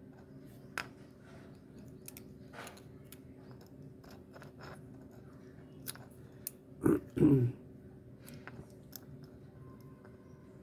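Small scattered clicks and scrapes of multimeter probe tips tapping against the SMD LEDs on an LED bulb's circuit board, with two louder dull knocks close together about seven seconds in.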